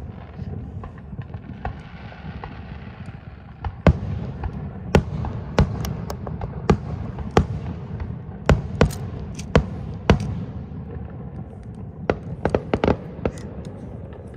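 Aerial fireworks bursting overhead: a string of sharp bangs at uneven intervals, about one or two a second, over a low rumble. A rushing hiss comes before the bangs pick up, and a quick cluster of cracks comes near the end.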